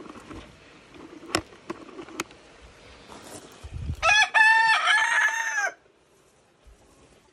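A rooster crows once, about four seconds in: a cock-a-doodle-doo of a short note and then a long held note that drops at the end, lasting under two seconds. Before it come a few sharp knocks and some rustling.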